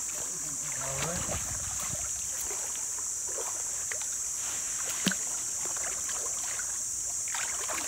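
People wading through a shallow, muddy creek, water sloshing and swishing around their legs, over a steady high buzz, with one sharp click about five seconds in.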